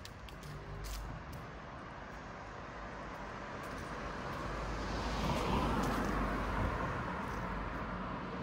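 A road vehicle passing by on a city street, its noise swelling to a peak about five to six seconds in and then easing off, over a steady background of traffic.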